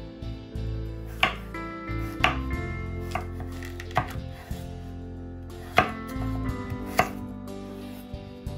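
A kitchen knife chopping food on a cutting board in single, unhurried strokes, about seven sharp cuts spaced roughly a second apart.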